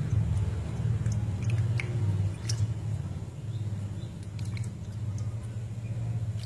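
Soft wet squishing and small splashes as fingers squeeze and pick the dark innards out of freshwater mussel meat in a metal bowl of water, with a few faint clicks, over a steady low hum.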